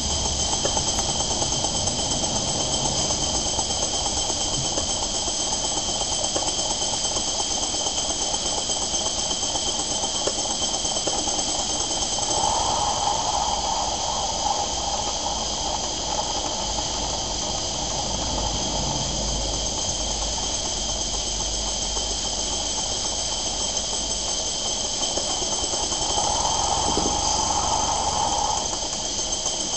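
Titan model steam engine running on steam from a gas-fired Stuart 504 boiler, with a steady steam hiss. A brighter, higher note comes in and fades twice: once around the middle and once near the end.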